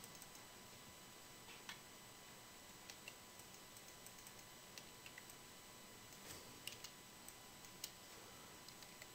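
Faint, scattered computer keyboard and mouse clicks over near-silent room tone.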